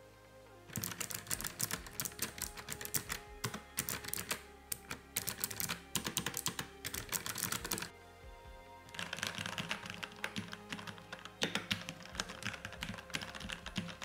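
Typing on a Nuphy Air75 mechanical keyboard with blue switches, nice and clicky, a fast stream of sharp key clicks for about seven seconds. After a short pause, typing follows on a Keychron V1 with red switches, nice and soft.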